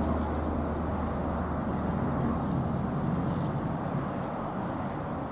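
Jet engine roar of a departing Qantas Boeing 747 climbing out after take-off: a steady low rumble that slowly fades as the aircraft moves away.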